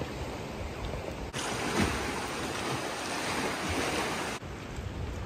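Sea water washing and lapping against the rock of sea arches and caves, a steady wash of noise. It grows louder and brighter for a stretch in the middle, with a small surge about two seconds in.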